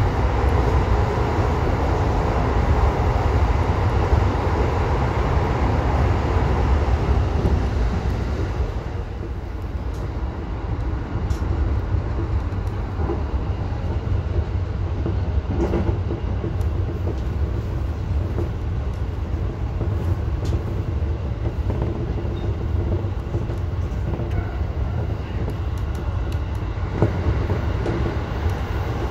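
Electric commuter train running on the line, heard from inside the front cab: a loud rush while in the tunnel that drops about eight seconds in as the train comes out, then a steady rumble of wheels on rails with a few sharp rail-joint clicks.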